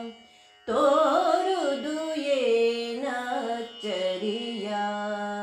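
Voice singing a Kannada devotional song (devaranama) in Carnatic style. After a brief pause about half a second in, it sings a flowing phrase of bending and held notes with no clear words, ending on a long held low note.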